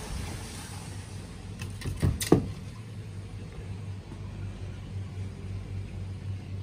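Steady low hum of the koi pond's pump and filter equipment, with two sharp knocks close together about two seconds in.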